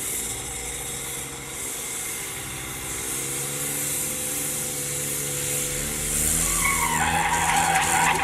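A vehicle engine running, its pitch slowly rising as it works harder. About seven seconds in, a louder skidding, spinning-wheel noise takes over.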